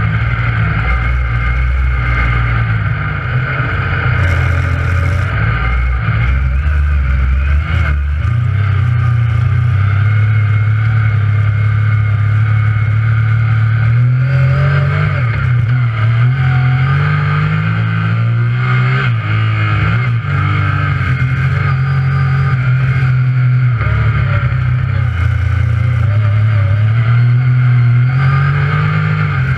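Yamaha YXZ1000R side-by-side's three-cylinder engine running hard through mud, its pitch repeatedly rising and falling with throttle and gear changes.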